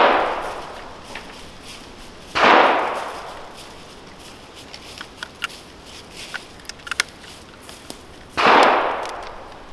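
Three black-powder rifle shots from a percussion breech-loading Kammerlader: one right at the start, one about two and a half seconds in and one near the end, each report echoing away over about a second. A few light clicks come between the second and third shots.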